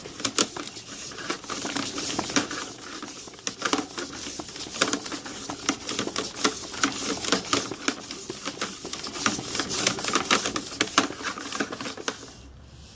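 Rapid, irregular clicking and tapping as a sewer inspection camera is pushed through a sewer line full of debris. It dies down near the end.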